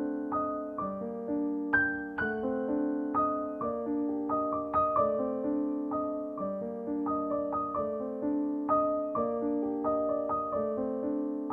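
Background piano music: a gentle melody of single notes and chords, each struck and fading away.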